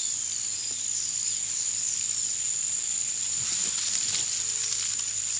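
Outdoor ambience: a steady high-pitched insect drone over hiss, with a few faint chirps now and then.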